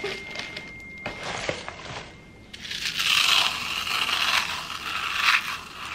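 Corn flakes being crushed between the hands and crumbled over a casserole: a dry, crackling crunch that grows louder and denser about two and a half seconds in.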